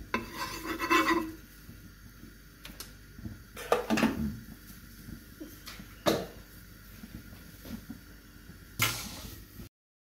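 A utensil knocking and scraping against a cooking pot in four short bouts of clatter, the last about nine seconds in, after which the sound cuts off suddenly.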